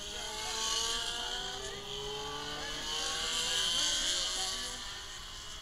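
Racing motorcycles running on the circuit, several engines rising in pitch as they accelerate, over a strong hiss. The sound swells about a second in and again, loudest, around four seconds.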